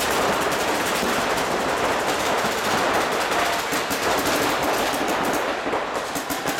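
Paintball markers firing rapidly from several players at once, the shots overlapping into a continuous clatter that echoes around a large indoor hall.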